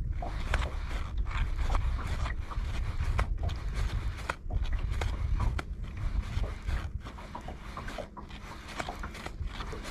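Spinning reel being worked during a lure retrieve, giving irregular clicks and scrapes, over a steady low rumble of wind on the microphone.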